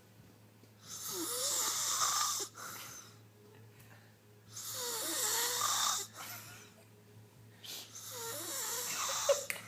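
A sleeping person snoring loudly: three long snores about three and a half seconds apart, with quieter breathing between them.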